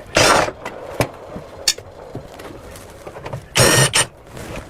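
Range hood's metal filter screen being worked loose and taken off: two short scraping rasps, one at the start and one about three and a half seconds in, with a few sharp clicks between them.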